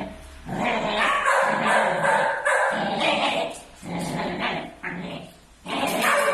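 Two six-month-old pit bull puppies growling and barking while they tug at a toy between them, in stretches of a second or two broken by short pauses.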